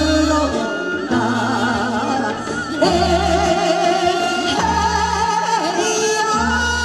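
Women singing a Korean folk song (minyo) through microphones over an amplified instrumental accompaniment, the sung notes held with vibrato above a bass line that changes every second or so.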